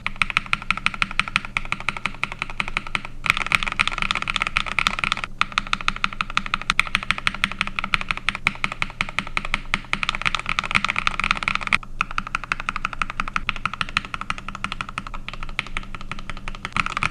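A mechanical keyboard fitted with Akko Rose Red linear switches being typed on quickly: a dense, steady run of keystroke clacks, broken by a few short pauses.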